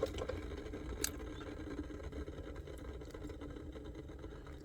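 Quiet room tone: a steady low hum, with two faint clicks near the start and about a second in.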